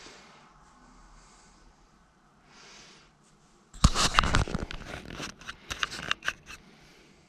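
Faint breathing, then about four seconds in a loud rapid clatter of clicks and knocks lasting around three seconds, handling noise at the new desktop.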